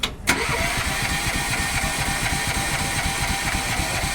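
Engine starting and then running steadily at idle, a low rumble with a steady high whine, after two sharp clicks at the very start. It is presented as a working machine: it starts.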